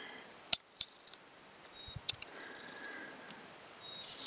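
Quiet handling noise: a few short, sharp clicks, two about half a second apart near the start and two more close together around two seconds in, with a faint thin whine in between.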